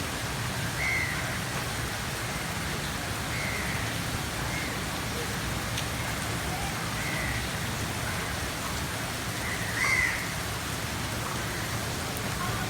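Steady rain falling on hard surfaces, an even hiss. A bird calls briefly about five times over it, the loudest call near the end.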